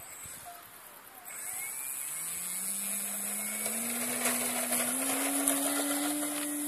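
Electric motor and propeller of a radio-controlled model plane spooling up for the takeoff roll. A whine starts about a second in and rises steadily in pitch as the throttle is opened.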